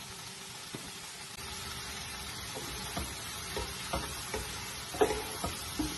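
Vegetables sizzling as they sauté in butter in a nonstick pan. The sizzle grows a little louder just over a second in, and from about three seconds a wooden spoon stirs them, knocking against the pan several times; the loudest knock comes about five seconds in.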